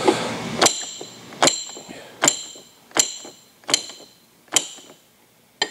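Steel Model T flywheel magnet clacking against the pole pieces of a magnet charger as the charger is pulsed: seven sharp metallic clicks, each with a short high ring, about one every three-quarters of a second.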